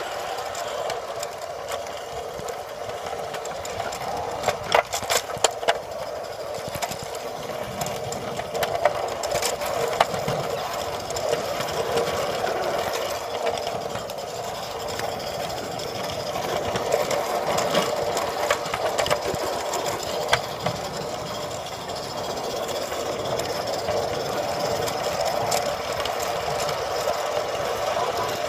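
Garden-railway train of a small live-steam Roundhouse George locomotive and wagons running on SM32 track, heard from on board a wagon: a steady rattling rumble of wheels on rail, with sharp clicks now and then as wheels cross rail joints.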